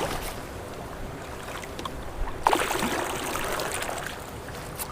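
Water sloshing and splashing around a solo canoe as it is paddled, with a louder splash about halfway through.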